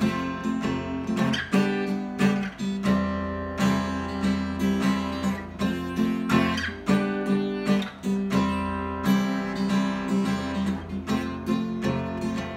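Acoustic guitar playing chords, a new chord or strum every half second to a second, over a low bass note that rings on underneath.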